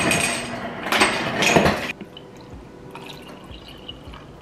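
Kitchen clatter of dishes and a cup being handled, which stops abruptly about two seconds in. Then comes quieter liquid pouring as cold brew coffee runs from a bottle into a cup.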